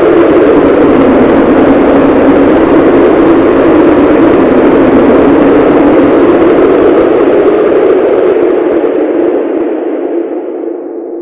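Cartoon-style wind sound effect: a loud, steady rush of wind with a low, hollow tone. It fades out over the last three seconds or so, the hiss dying away before the low tone.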